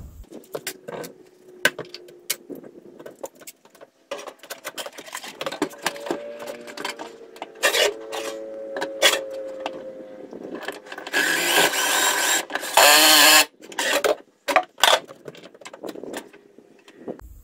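Cordless drill driving a mounting screw through a charge controller's bracket into a plywood wall. The motor runs in short spurts among clicks of handling, with two louder, harsher bursts near the end.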